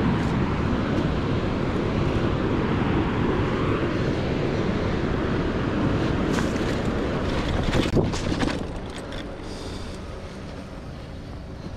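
Wind buffeting the microphone over the rumble of a mountain bike rolling along a dirt trail. A run of sharp rattles and knocks comes between about six and eight seconds in, loudest near eight seconds, and the noise then drops noticeably quieter.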